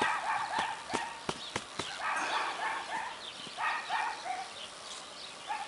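Several light knocks and clicks as a beehive's cover is lifted off and set aside, with a dog barking several times.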